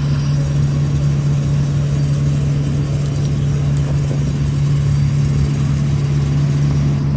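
Engine of a piece of heavy tree-work machinery running steadily at constant speed, a loud low hum.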